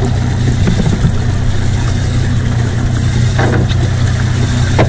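Boat engine idling with a steady low hum, with a couple of short knocks about three and a half seconds in and near the end.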